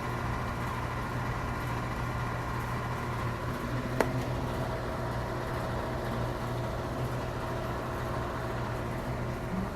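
A steady low mechanical hum, like a running motor or vehicle, with a single sharp click about four seconds in.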